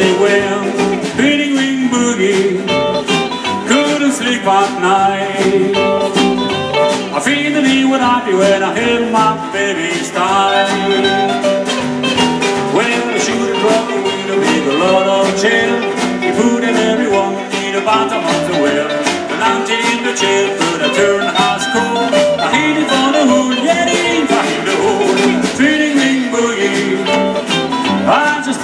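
Live band playing an instrumental passage of a song: acoustic guitar strummed over a steady drum beat.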